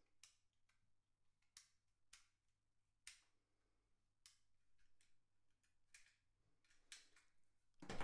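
Near silence with faint, irregular small metallic clicks about once a second from a 5-lever mortice lock being handled with a mortice pick tension tool in its keyhole.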